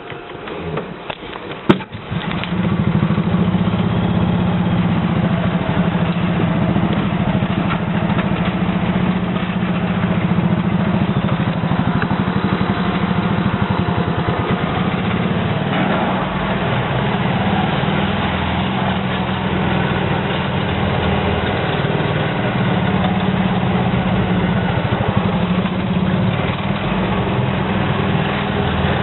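A sharp click, then about two seconds in the small petrol engine of a Club Car Carryall utility cart starts up and runs steadily as the cart drives along.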